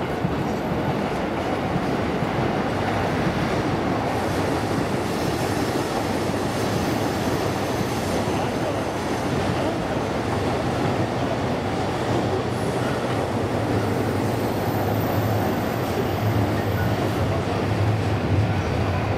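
A train running on nearby tracks: a steady rumbling noise, with a low drone that grows stronger over the last several seconds.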